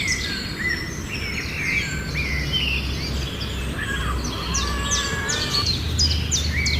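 Several small birds chirping and twittering, many short calls and quick falling notes overlapping throughout, over a steady low background rumble.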